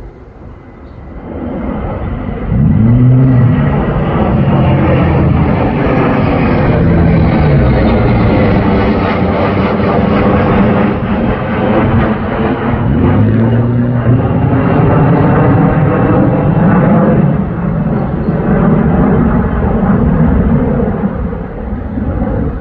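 Three military fighter jets flying over in formation, their jet engine roar swelling in over the first couple of seconds and staying loud, its pitch sweeping slowly up and down as they pass, then easing off at the very end.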